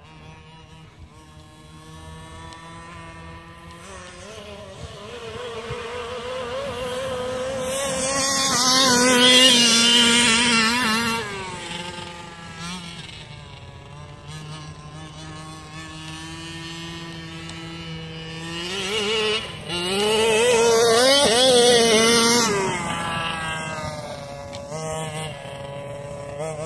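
Two-stroke engine of a 1/5-scale gas RC truck, a Rovan Losi 5ive-T clone, revving up and down as it is driven, its pitch rising and falling with the throttle. It grows loudest twice, about a third of the way in and again past two-thirds.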